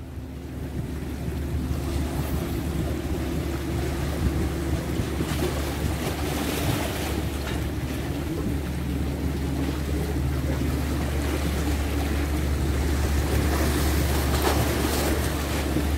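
Sea swell washing and splashing against coastal rocks, with wind rumbling on the microphone.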